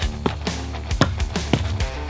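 Background music with held tones and a steady beat.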